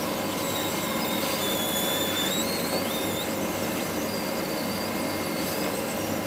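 Hot air rework gun blowing steadily onto a circuit board to desolder a small surface-mount capacitor: a continuous airflow hiss with faint high whistles that waver up and down.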